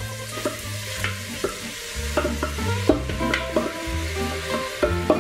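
Pureed soffritto of carrot, onion and celery going into hot olive oil and sizzling, with a spatula scraping the food-processor bowl and several sharp taps against the bowl and pot.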